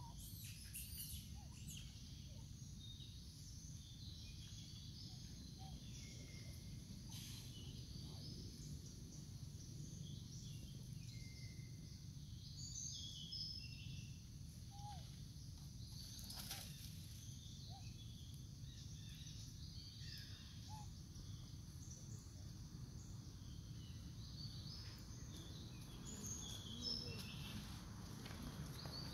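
Outdoor wildlife ambience: scattered short bird chirps over a steady high insect drone and a low background rumble, with a few brief noises.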